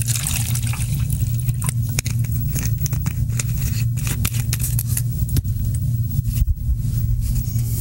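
Steady low electrical hum on the audio line, with irregular crackling clicks throughout.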